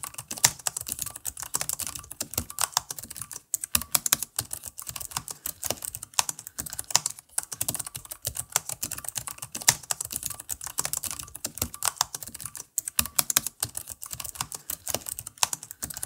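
Fast typing on an Alienware m15 R4 laptop keyboard with CHERRY MX Ultra Low Profile mechanical switches: a dense run of sharp key clicks with a few brief pauses. The switches are tactile and clicky, with an audible click that the maker likens to its MX Blue.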